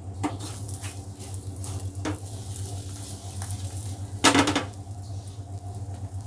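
A nonstick frying pan with a roti in it being handled on a gas stove: a few light knocks, then one louder clatter about four seconds in, over a steady low hum.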